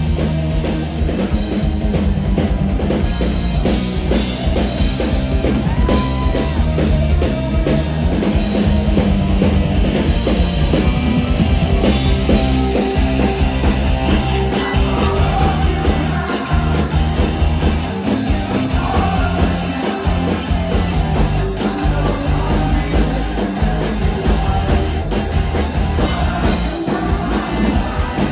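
Live rock band playing loud and steady, with electric guitars, bass guitar and a driving drum kit.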